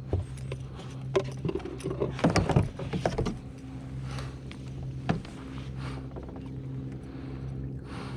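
Irregular knocks and rattles of rod and tackle against a kayak as a fish is fought, busiest about two to three seconds in, with one sharp knock later. A steady low hum runs underneath.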